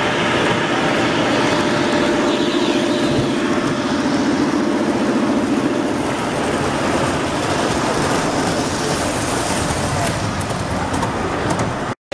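Model train running along the layout track toward and past the camera, with a steady rumble and clatter of wheels on rail that is loudest in the first half and fades after it goes by.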